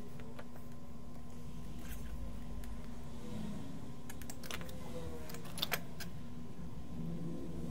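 Light clicks and taps of small hand tools working a thin wire at a headphone speaker, over a steady low hum. The loudest is a quick pair of clicks a little past halfway.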